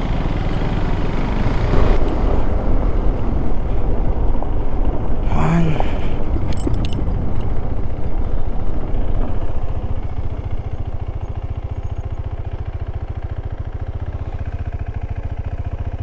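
KTM 390 Adventure's single-cylinder engine running under way on a rough dirt track, with a fast even pulse. After about ten seconds the engine note turns steadier and a little quieter.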